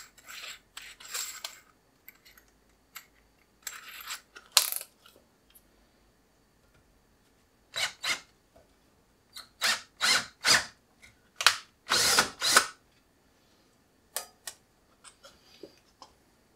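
Cordless drill run in a series of short bursts, drilling pilot holes in a metal hard drive rack out to a larger size. Near the start, a few brief ratcheting bursts as the new bit is tightened in the drill's chuck.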